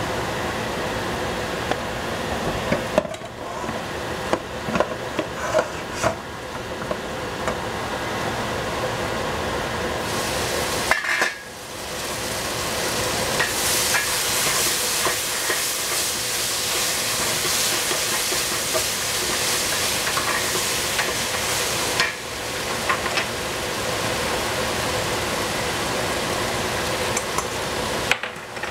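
Vegetables sizzling as they fry in a pan and are stirred, with a spatula clicking and scraping against the pan. The sizzle drops away briefly a few times.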